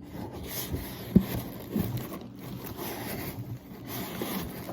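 Paper and plastic rustling and scraping as printed sheets are handled, with a sharp knock about a second in and scattered small clicks.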